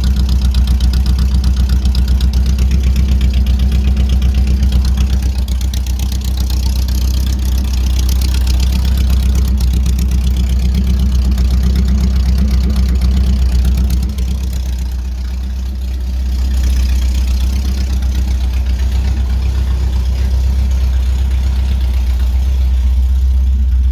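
A 1975 Porsche 914's air-cooled flat-four engine running steadily with a low, even pulse while the transaxle is tested in gear, with the CV axles off. The engine dips slightly about 14 seconds in and picks back up a couple of seconds later.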